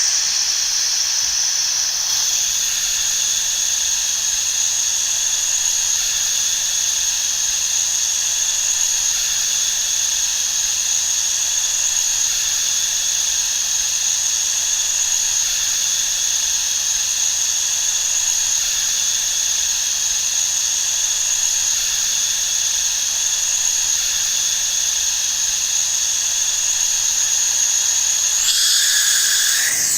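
Air hissing steadily out of a punctured tyre, with a high whistling tone over the hiss. The tone wavers and shifts near the end.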